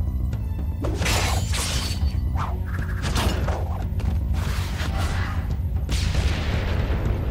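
Action cartoon score with a steady bass, overlaid with several cartoon sound effects: whooshing sweeps and crashing, shattering impacts.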